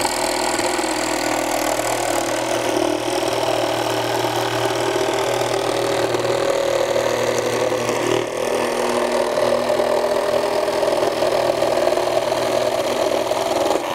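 Metabo HPT CR18DAQ4 18-volt cordless one-handed reciprocating saw with a jigsaw blade, cutting through plywood: its short-stroke blade and motor run steadily and loudly. There is a brief dip about eight seconds in, and the saw stops just before the end.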